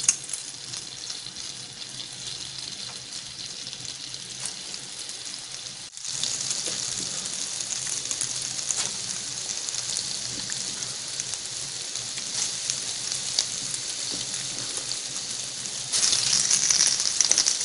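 Urad dal batter balls deep-frying in hot oil in a kadai: a steady sizzle with fine crackling spatter. It cuts out for a moment about six seconds in and grows louder near the end as more batter goes into the oil.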